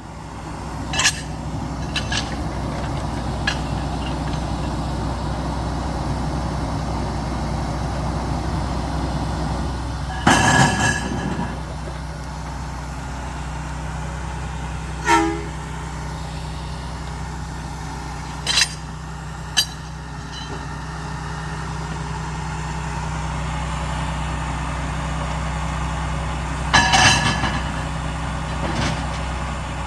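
A steady low engine rumble with two short horn toots, about ten seconds in and again near the end, and a few sharp clicks between them.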